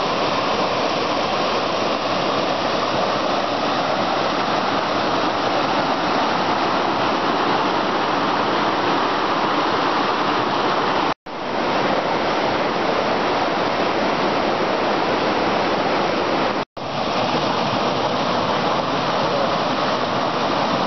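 Mountain creek rushing over boulders and small cascades: a steady, loud wash of water, broken twice by brief gaps of silence, about 11 and 17 seconds in.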